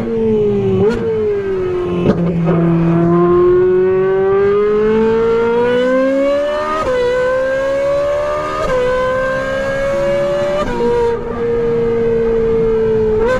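Ferrari 458's naturally aspirated V8, fitted with a Brilliant aftermarket exhaust, running hard at full throttle on track. The note sinks for the first two seconds, then climbs steadily, with quick upshifts about seven, nine and eleven seconds in. After the last shift it holds a steady high pitch.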